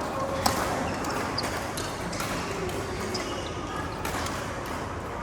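Badminton rally: a sharp racket hit on the shuttlecock about half a second in, then several lighter knocks of play, over a low murmur of voices.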